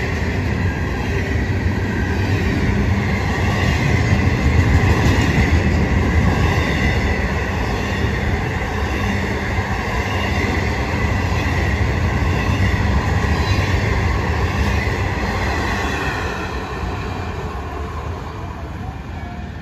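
Florida East Coast Railway double-stack intermodal freight train rolling past, its wheels and cars making a steady heavy rumble with a thin high wheel squeal over it. The sound fades over the last few seconds as the end of the train goes by.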